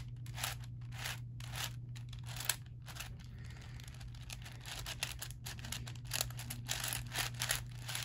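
Layers of a homemade flat-sided 7x7 Rubik's cube being turned rapidly one after another, a quick run of short plastic scraping and clicking sounds as the pieces slide past each other. A steady low hum runs underneath.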